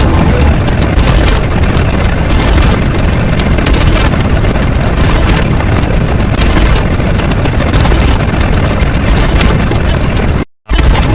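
Loud, continuous rumbling noise, heaviest in the bass, that cuts out for a split second near the end.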